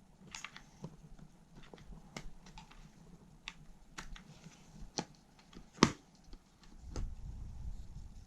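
Light clicks and taps of small plastic and metal laptop parts and tools being handled, with one sharp click a little before six seconds in, then a low rumbling handling noise near the end.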